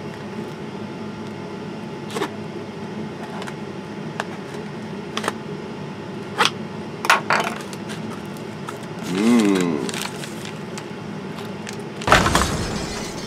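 A cardboard shipping box being opened and handled: scattered taps, knocks and scrapes, with a brief squeak about nine seconds in. Near the end, a plastic anti-static bag rustles loudly as the card is pulled out, all over a steady low hum.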